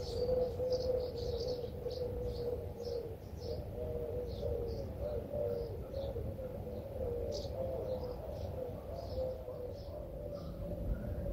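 Birds chirping: many short, high calls repeated irregularly, over a steady, slightly wavering hum.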